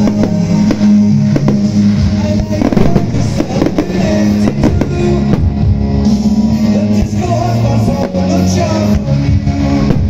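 Loud rock music with drums, guitar and singing, with fireworks shells popping beneath it.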